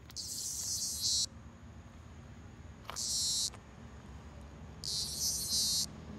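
A dying cicada buzzing in three short, high-pitched bursts: one right at the start lasting about a second, a shorter one about three seconds in, and another of about a second near the end.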